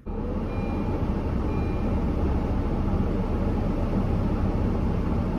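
Car engine idling with the air-conditioning fan blowing, a steady rush heard inside the cabin.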